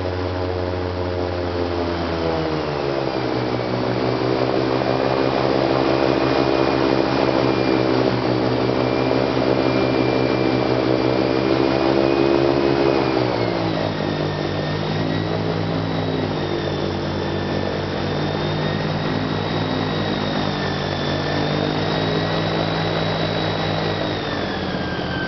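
Airboat engine and its large propeller running at speed: a loud, steady drone with a high whine riding above it. The pitch steps down about two seconds in, again about halfway through, and once more at the very end as the revs are eased back.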